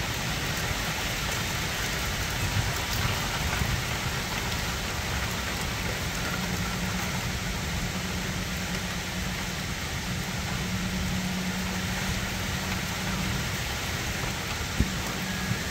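Steady rain falling on leafy trees, an even hiss. A low hum runs through the middle stretch, and there is one sharp tap near the end.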